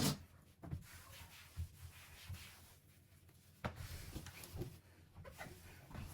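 Light knocks and rubbing of household items being handled, with a sharper knock at the start and another a little past halfway.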